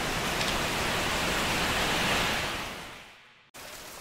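A loud, even hiss swells for about two seconds, then fades out and cuts off sharply about three and a half seconds in. It gives way to quieter steady rain with a few distinct drops.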